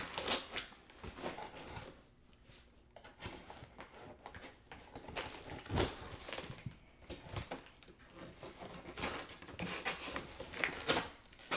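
A knife blade slitting packing tape and scraping along a cardboard box: irregular scratching and small clicks, with one louder knock against the box about six seconds in.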